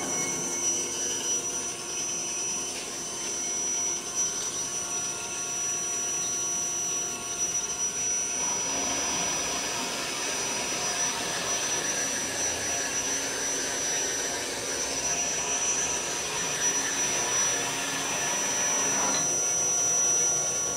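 Hydmech horizontal band saw running a semi-automatic cut through bar stock, with a steady high whine. The cutting noise thickens about eight seconds in and changes abruptly near the end as the cut finishes.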